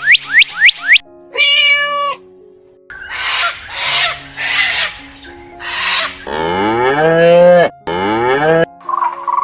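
Cow mooing: one long low moo that dips and rises in pitch, and a shorter moo right after, near the end. Before it come other animal sounds in quick succession: a run of quick falling whistles, a short pitched call, and several breathy, noisy calls. Soft background music plays underneath.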